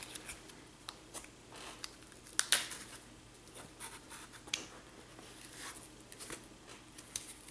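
Hands handling and opening a corrugated-cardboard mailer: a string of short scrapes, rustles and taps of cardboard, the loudest about two and a half seconds in.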